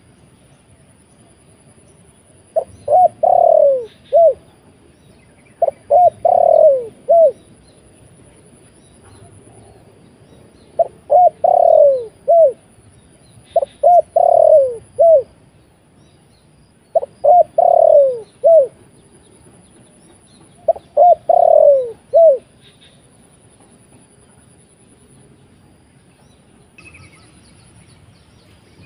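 A trained decoy dove cooing loudly and close, six phrases of three to five short, falling coo notes, one phrase every three to four seconds. A faint, steady, high insect drone runs underneath.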